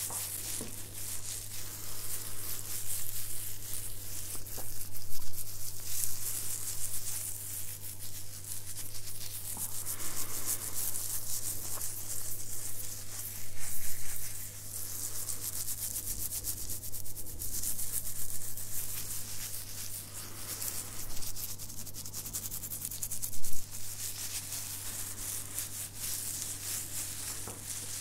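Fingertips scratching and rubbing through a short beard close to the microphone: a dense, crackling, bristly scratch that swells and fades in waves. A steady low hum sits underneath.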